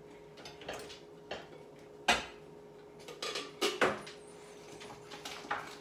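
Dishes clinking and knocking together as they are taken out of a low cupboard: a string of separate clacks, the sharpest about two seconds in and several close together a second later.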